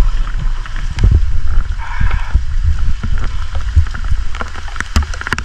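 Water sloshing and splashing in irregular bursts over a steady low rumble of wind on the microphone.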